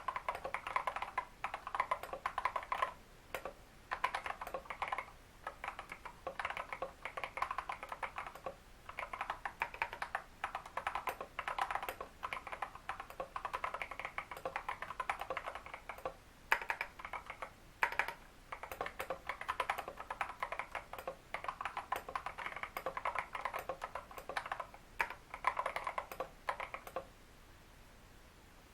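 Typing on a mechanical keyboard with lubed tactile Holy Panda switches and XDA keycaps: quick runs of key clicks with brief pauses between bursts. The typing stops shortly before the end.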